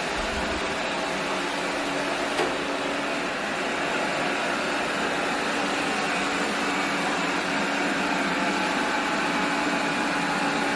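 Anker eufy 25C robot vacuum running steadily with its suction fan on the higher power setting: an even whir with a low hum. A small click about two and a half seconds in.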